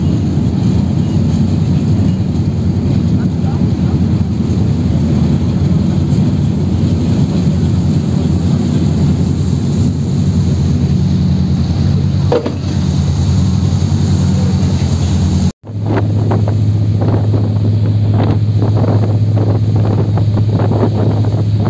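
Catamaran ferry's engines running with a steady low drone. About two thirds of the way through the sound cuts out for an instant, then the drone returns deeper and steadier, with wind buffeting the microphone.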